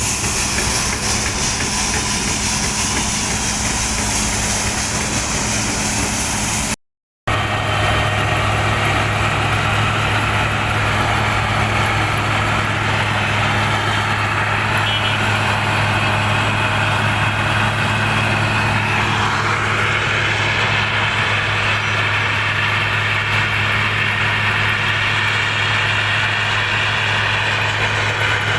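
Heavy diesel road-works machinery, such as an asphalt milling machine or power broom, running steadily with a low, even engine hum. The sound cuts out for a split second about seven seconds in, then carries on with a deeper, steadier engine note.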